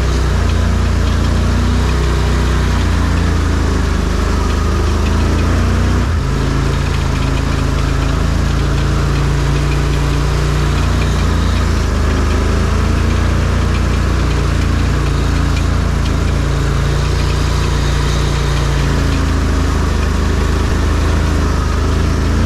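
ARGO amphibious ATV engine running steadily under way, loud and low; its note shifts about six seconds in and settles back near the end.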